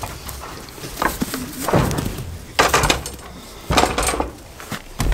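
Irregular knocks and clatters against wooden boards, several in a row about a second apart, as goats jostle and bump at a wooden feeder.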